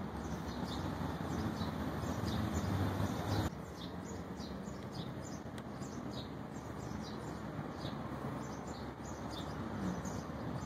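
Small birds chirping repeatedly over a steady low rumble of background noise. About three and a half seconds in, the rumble drops abruptly to a quieter level while the chirping goes on.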